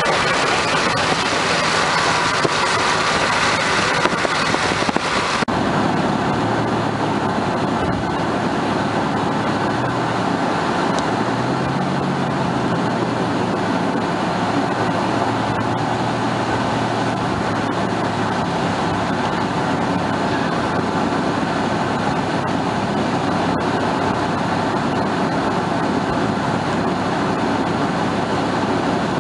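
Road and engine noise inside a car driving on a wet road in rain. About five seconds in, a hiss cuts off sharply, leaving a steady, lower running noise.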